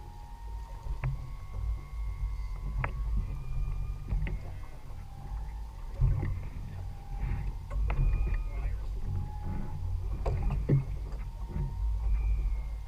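Steady low rumble aboard a small outboard-powered fishing boat at sea, with scattered sharp knocks and short, thin whistling tones that come and go.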